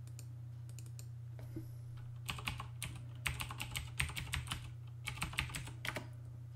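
Typing on a computer keyboard: a few light key clicks, then a quick run of keystrokes from about two seconds in that stops near the end. A steady low hum lies underneath.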